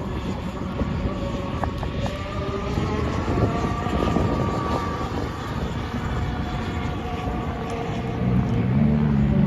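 Gas-engined RC boat running out on the water: a steady engine note that drifts slowly up and down in pitch. A louder, lower drone comes in near the end.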